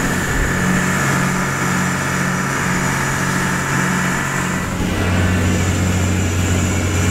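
Fishing boat's engine running steadily under way, with a wash of wind and water noise; the low engine hum grows stronger about five seconds in.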